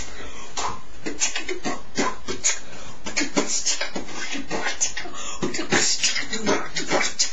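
A man beatboxing: sharp percussive mouth sounds in an uneven rhythm, about two to three strikes a second.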